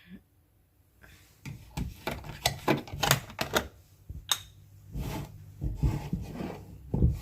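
Irregular clicks, knocks and rubbing from kitchen items being handled while cereal is prepared, starting about a second and a half in after a short near silence.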